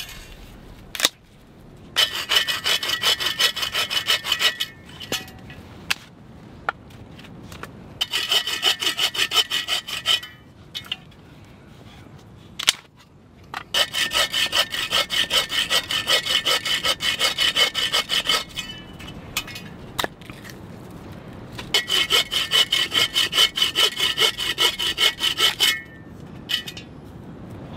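Hand saw cutting through dry, dead branches on a log, in several bouts of quick back-and-forth strokes with short pauses between cuts. A couple of sharp knocks of wood fall in the pauses.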